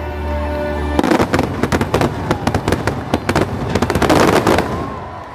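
Fireworks finale barrage: a dense, rapid run of shell bursts and crackling, starting about a second in and dying away near the end, over show music from loudspeakers.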